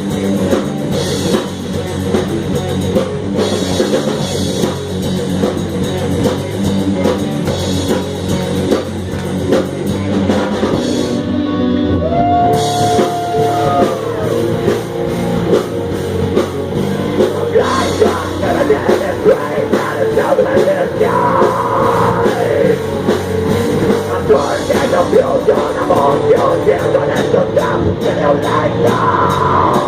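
Live black metal band playing an instrumental passage: fast, dense drumming under distorted electric guitars, with a short break in the cymbals about eleven seconds in.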